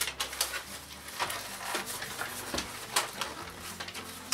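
Irregular rustling and crinkling of cardboard, plastic wrap and paper as an appliance box is unpacked and a paper instruction leaflet is handled.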